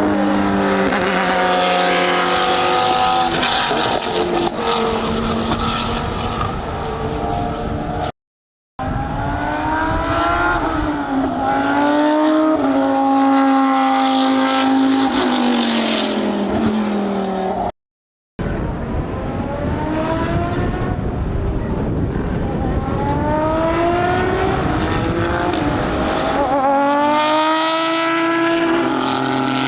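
Racing car engines at full throttle, several at once, climbing in pitch through repeated upshifts as GT3 cars accelerate past. The sound drops out twice for about half a second.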